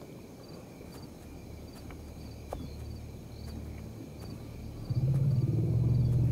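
Night insects chirping in a steady repeating pattern over a faint low hum. About five seconds in, a loud, low droning tone sets in suddenly, the start of music.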